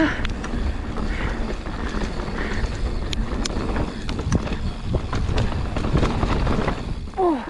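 Riding noise from a mountain bike on a dirt trail: wind buffeting the microphone over a constant rumble of tyres on dirt, with many small clicks and knocks from the bike rattling over bumps.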